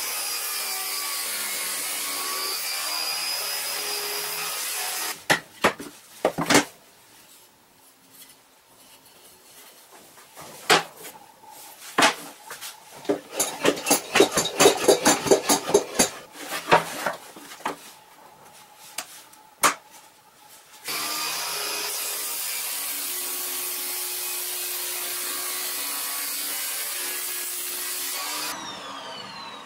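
Table saw motor running steadily, then switched off about five seconds in. Then a quieter stretch of clicks and knocks from clamps and wood being handled. The saw starts again about two-thirds of the way through and winds down near the end with a falling whine.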